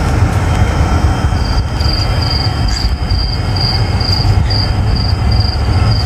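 Wind buffeting the phone's microphone, a loud steady rumble. From about a second in, a thin high-pitched tone pulses on and off a few times a second over it.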